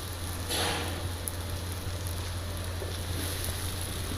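Food sizzling in hot oil, with a brief louder burst of hissing about half a second in, over a steady low hum.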